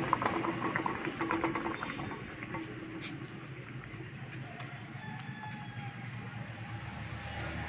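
Metal clatter and scrapes of a steel karai being lifted off a wood-fired clay stove, loudest in the first two seconds, with a sharp click about three seconds in. A rooster crows in the background during the second half.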